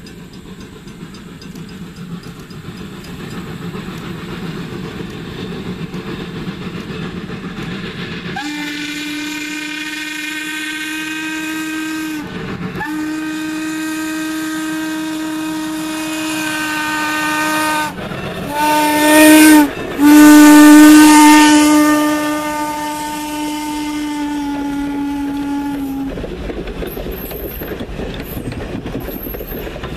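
Norfolk & Western No. 475, a 4-8-0 steam locomotive, draws near, growing louder, then sounds its chime steam whistle in four blasts, long, long, short, long: the grade-crossing signal. The last long blast is the loudest. Near the end its passenger coaches rumble past on the rails.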